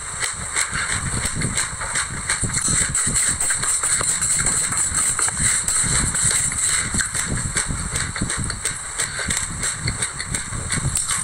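Close-miked chewing of a mouthful of white sesame seeds: a dense, continuous crackle of tiny crunches. A wooden spoon scoops through the seeds in a glass bowl partway through.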